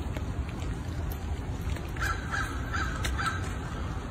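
A crow cawing about four times in quick succession, starting about halfway through, over a steady low rumble.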